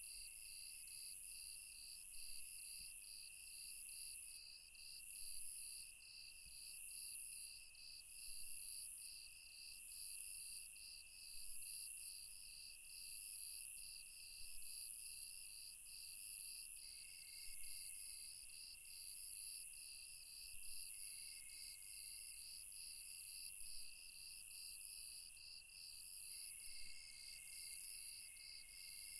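Night chorus of crickets and other insects: a fast, even pulsing chirp, a steady high trill underneath, and a very shrill layer above that swells and fades about every second and a half.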